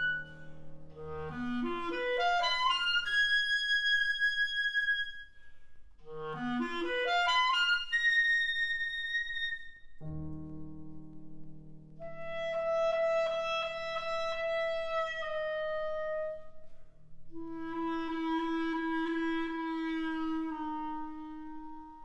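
Solo clarinet playing an unaccompanied-style cadenza: two fast upward runs, each ending on a high held note, then long held notes, one wavering rapidly. A low piano chord sustains underneath the later held notes.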